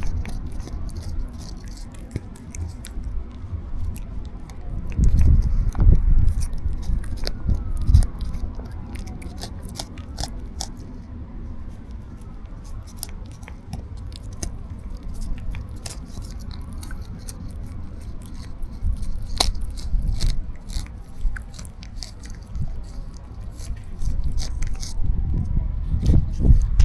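A street cat eating wet cat treats close to the microphone: a long run of small wet chewing and licking clicks, with low rumbles now and then.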